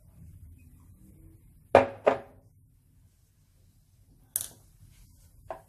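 Two sharp knocks about a third of a second apart, then a lighter, higher click a couple of seconds later: a sesame oil bottle being set down on a kitchen counter.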